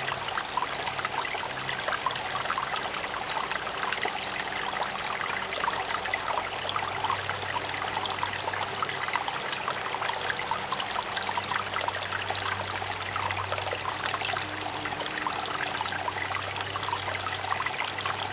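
Small creek's running water trickling and babbling steadily.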